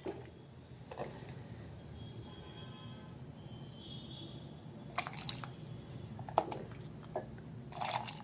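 A steady high-pitched insect trill, like crickets chirping, with a few faint short clicks and knocks over it.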